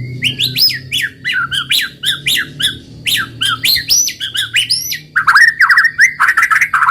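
White-rumped shama singing a fast run of varied, sharply gliding whistled and harsh notes, breaking a little past halfway into a rapid trill of evenly repeated notes.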